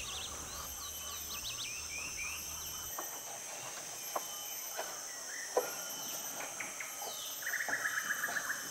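Tropical forest ambience: birds calling with quick repeated chirps over a steady high insect drone, with a few faint clicks in the middle. Near the end a fast run of chirping notes.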